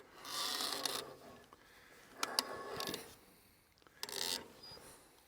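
Three short rasping, scraping strokes about a second and a half apart, from hands working the blade tensioner of a Woodland Mills band sawmill.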